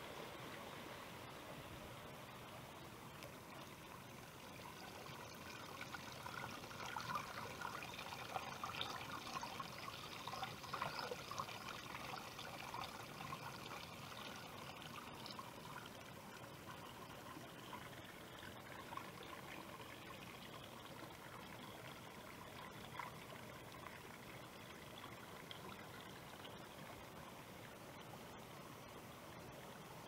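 Small forest stream trickling and gurgling over stones, louder and busier for several seconds in the middle.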